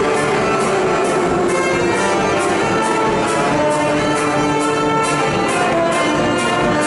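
Music with brass instruments playing held notes over a steady beat of about two beats a second.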